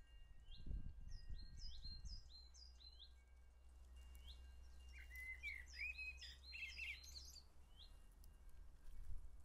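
A songbird singing: a run of short, high, rising chirps, then a louder, busier warbling phrase about five seconds in. Faint low thumps and a low rumble sit underneath near the start.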